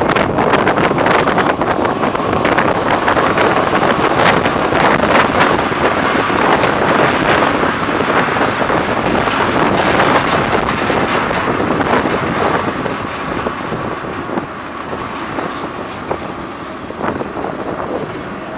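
Freight train of tank cars rolling past at close range: a steady rush and rumble of steel wheels on the rail, with scattered clicks, growing somewhat quieter through the second half.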